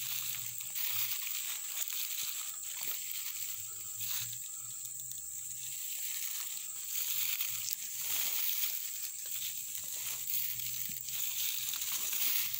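Footsteps rustling and crunching through a carpet of dry, dead grass, with irregular crackles, over a steady high hiss.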